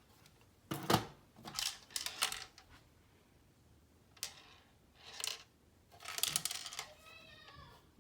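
Hard objects being handled on a table: a series of short clattering knocks and rustles, with a brief pitched squeak near the end.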